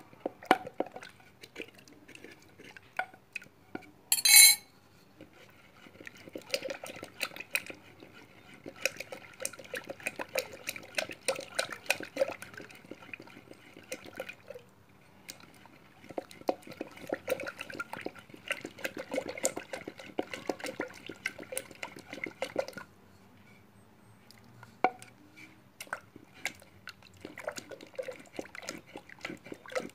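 Wooden pestle pounding in a tall wooden mortar: rapid runs of knocks in two long bouts with short pauses between them. A brief, much louder burst comes about four seconds in.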